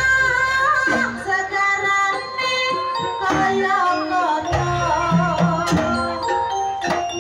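Live Javanese jaranan music: a gamelan-style ensemble with hand-drum strokes, sustained ringing gong and pot-gong tones, and a wavering melody line with singing over it.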